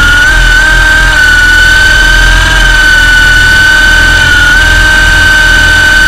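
Electric motors and rotors of an MJX F639 coaxial RC helicopter whining at a steady high pitch, heard up close from the onboard camera. The pitch dips and recovers briefly a few times as the throttle shifts.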